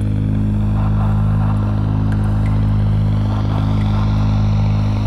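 Background music: low droning notes held at a steady pitch, with a regular pulse about every second and a half.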